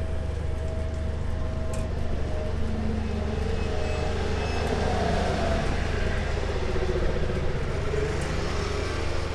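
A steady low mechanical hum with street traffic noise.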